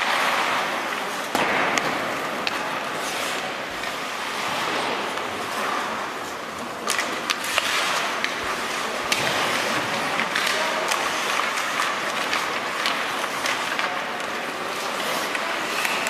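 Sounds of an ice hockey game in play: skate blades scraping and carving the ice, with sharp clacks of sticks and puck scattered throughout.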